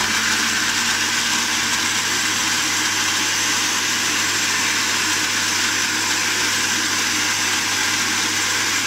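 Electric countertop blender with a glass jug running steadily at speed, blending a liquid mix of dates and banana.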